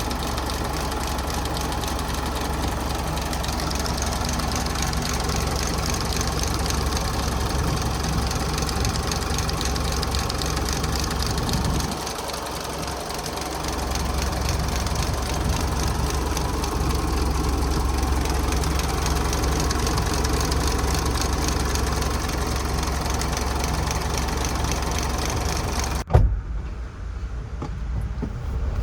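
Mitsubishi Pajero Sport engine running steadily, with the rattling/whining noise that the owner suspects comes from the drive belt, belt tensioner or pulleys. The sound cuts off abruptly with a click near the end.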